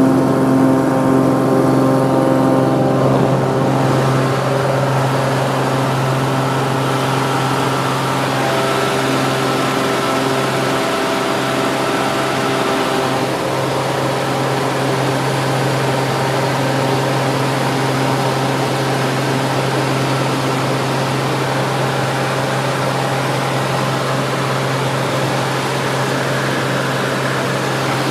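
Light aircraft's engine and propeller at takeoff power, heard from inside the cabin through the takeoff roll and climb-out: a steady, loud drone.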